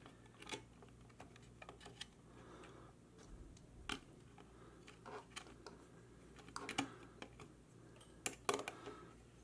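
Faint, irregular clicks and taps as a plastic smart light switch is pressed into a metal junction box and its mounting screws are turned with a hand screwdriver.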